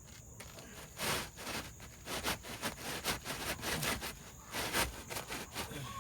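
Irregular scrapes and rustles of work on an asphalt shingle roof as the lifted shingles are put back in place, with a dozen or so short strokes, the loudest about a second in and just before five seconds.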